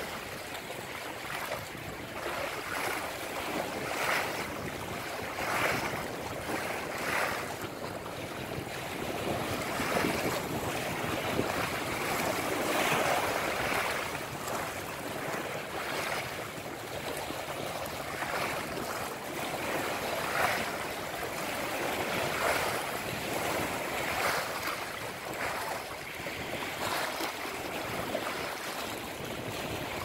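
Small wind-driven river waves washing against the shore in irregular surges every second or two, with wind on the microphone.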